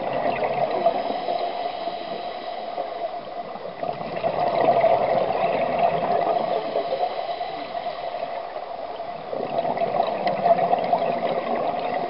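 Underwater burbling of scuba regulator exhaust bubbles, heard through the water, swelling in bursts every few seconds as the diver breathes out.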